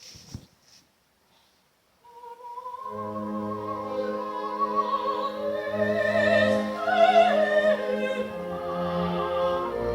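Opera performance: after a brief hush, a long sung note with vibrato enters about two seconds in, and the orchestra joins beneath it with sustained low notes. The music swells toward the middle.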